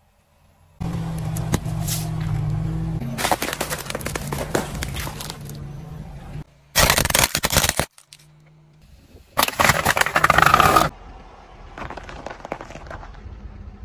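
A car tyre rolling slowly over objects and crushing them, heard as a run of separate short clips. Eggshells crack and crunch under the tread as a long crackling stretch. Two short, loud bursts of crackling follow, then a quieter crunching stretch near the end.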